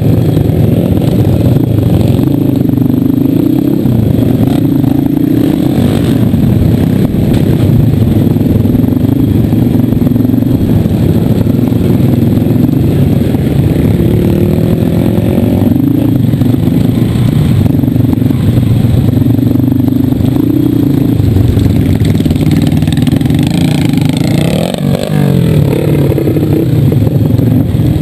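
Trail dirt bike engine running hard under throttle, heard close from the ridden bike, its revs rising and falling over and over as the rider opens and closes the throttle.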